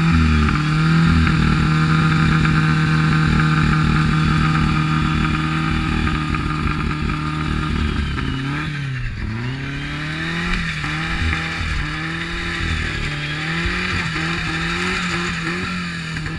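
Burnout car's engine held at steady high revs while its rear tyres spin, then revved up and down over and over for the second half.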